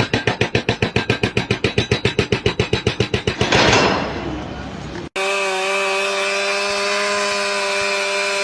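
Two-stroke chainsaw engine chugging in rapid even pulses, about eight a second, then a brief loud noisy burst about three and a half seconds in. After an abrupt cut, a chainsaw runs steadily at high revs.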